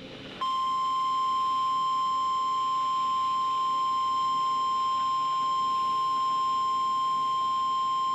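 NOAA Weather Radio 1050 Hz warning alarm tone: one steady, unbroken high tone that starts about half a second in, heard through a radio receiver. It signals that a warning message, here a severe thunderstorm warning, is about to be read.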